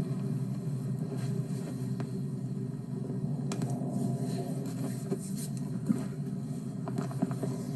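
Steady low hum made of several held low tones, with a few faint clicks and taps.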